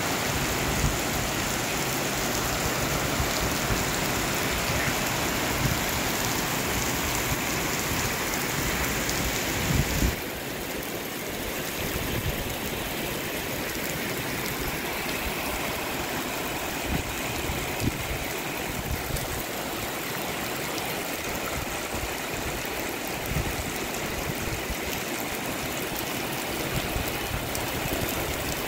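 Heavy rain pouring onto a flooded paved yard: a steady hiss of falling rain and splashing water. A couple of low knocks come about ten seconds in, after which the hiss is a little quieter, with a few more low knocks later.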